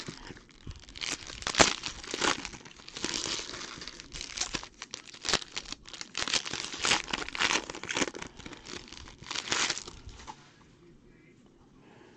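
Foil football-card pack wrappers crinkling and tearing as they are ripped open and peeled off by hand: a run of sharp rustles that dies away about ten seconds in.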